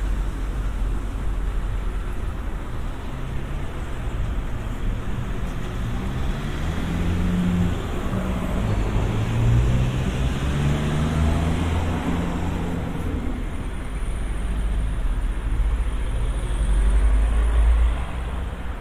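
A car passing on a city street, its engine heard most clearly for several seconds in the middle, over a steady low rumble of traffic.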